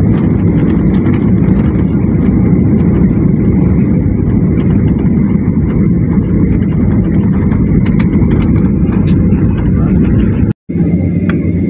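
Cabin noise of a Boeing 737 airliner on its landing rollout: a loud, steady rumble of engines and wheels on the runway, with the spoilers deployed after touchdown. A few light rattles come about eight seconds in, and the sound cuts out for an instant near the end.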